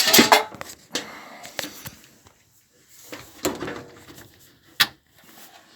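Scattered clicks, knocks and clatter of objects being handled, with a burst at the start and one sharp knock near the end.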